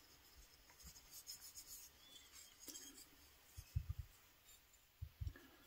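Faint rubbing of oily fingers on a carved wooden spatula as olive oil is spread onto the bare wood, with a few soft bumps of handling in the second half.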